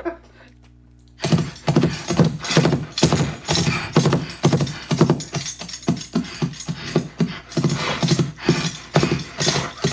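Foley recreation of a horse played back: rapid, uneven hoofbeats clip-clopping, layered with bridle jingle and horse snorts made with a man's voice. It starts about a second in.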